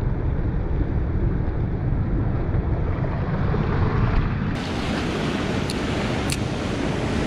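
Wind buffeting the microphone over waves washing against breakwall rocks, a steady rushing noise heaviest in the low end. About four and a half seconds in the sound turns brighter, and two short clicks follow a second or so later.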